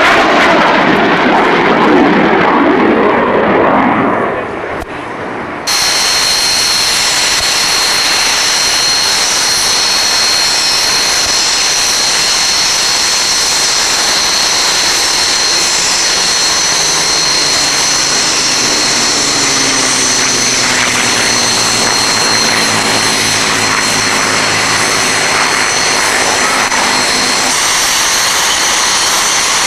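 A military jet flies past with loud engine noise that dies away about four seconds in. After a cut, the Red Arrows' BAE Hawk jets give a steady high turbine whine as they run and taxi on the ground. Over the whine, a propeller aircraft passes from about fifteen seconds in, its engine note falling slowly in pitch.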